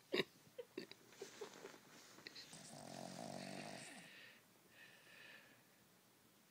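Sleeping dog snoring: one long snore about two and a half seconds in, then a fainter breath about two seconds later. A sharp click comes near the start, followed by a few small clicks.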